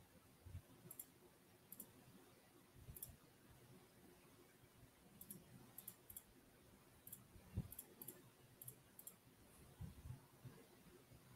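Faint computer mouse clicks, about a dozen at irregular intervals, some coming in quick pairs, over quiet room tone with a few soft low thumps.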